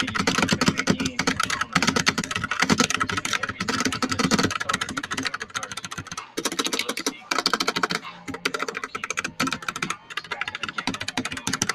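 Typing on a Royal Kludge RK61 60% mechanical keyboard with brown switches: a rapid, irregular stream of key clicks with a few brief pauses, pretty quiet for a mechanical keyboard.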